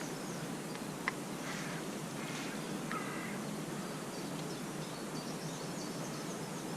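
Steady hiss of woodland ambience with birds calling a few short times in the first half and faint high chirps throughout; a single sharp click about a second in.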